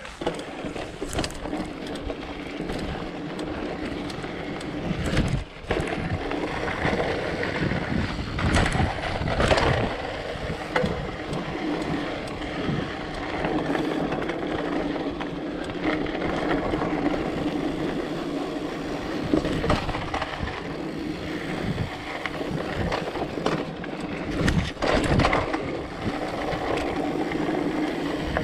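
Mountain bike riding over rocky singletrack: steady tyre noise on the dirt, broken by frequent clatters and knocks as the wheels hit stones and the bike rattles.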